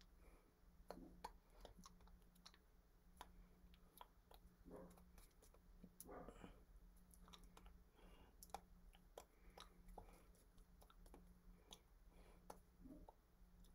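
Near silence: faint scattered clicks and soft taps from a signer's hands and mouth while signing, over a steady low electrical hum.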